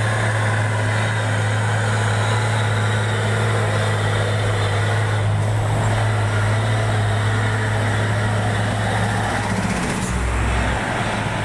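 Heavy diesel trucks passing close by, their engines droning loudly and steadily, with the low engine note dropping deeper about ten seconds in as a truck passes right alongside.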